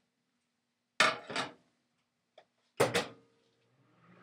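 Two sharp knocks of something hard, nearly two seconds apart, each dying away quickly.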